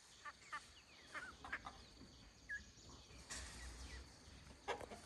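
Domestic ducks calling faintly and now and then: a few short, scattered quacks, with a louder one near the end.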